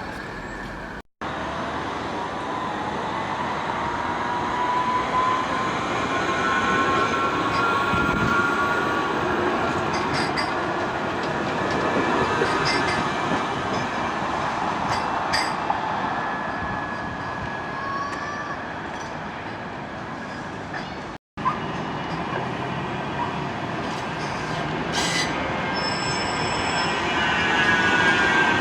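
Tram running on its rails with rumble and thin squealing, whining tones that glide slowly up and down. The sound cuts out abruptly twice, about a second in and again near 21 seconds.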